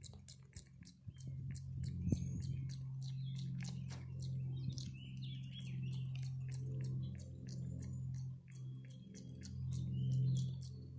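Rapid small clicks and smacks from a Java macaque's mouth close to the microphone, several a second, over a steady low hum.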